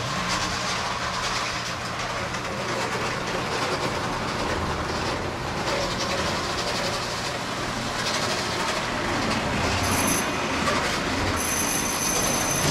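Model electric train running on its track: a steady rolling rumble of wheels on rail with some clicking and wheel squeal. A faint high whine comes in near the end.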